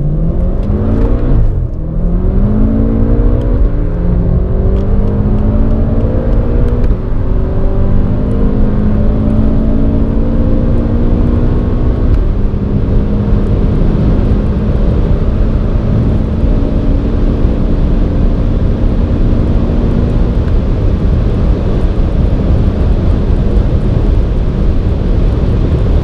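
Onboard sound of two twin-turbocharged engines, an Audi RS6 5.0 V10 and a BMW M5 4.4 V8, at full-throttle acceleration. Their pitch climbs and drops back at quick upshifts in the first few seconds, then rises slowly through the long upper gears towards about 300 km/h, over a steady rush of road and wind noise.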